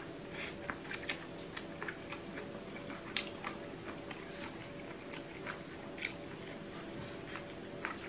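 A person chewing and biting crunchy seafood papaya salad, irregular moist crunches and clicks, a couple of them louder, over a faint steady hum.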